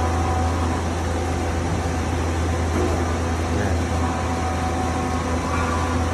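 Doosan Puma VT900 vertical turret lathe powered up and running, a steady low machine hum with faint steady whines above it, while its turret head traverses.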